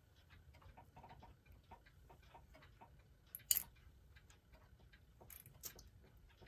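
Faint, irregular clicking and ticking as the start knob of a Hammond Bichronous electric clock is spun by hand and turns its gears, with a sharper click about three and a half seconds in. The clock does not catch and run.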